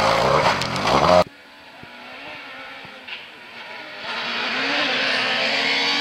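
Peugeot 207 S2000 rally car's 2.0-litre naturally aspirated four-cylinder engine revving hard, its pitch rising and falling, breaking off abruptly just over a second in. Another 207 S2000 follows, fainter at first, its engine note rising steadily and growing louder as it accelerates.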